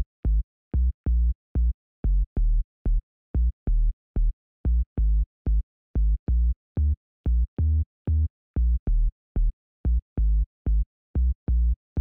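Background electronic music stripped down to a bare drum-machine beat: short, deep kick-drum thumps, about three a second in an uneven pattern, with silence between them.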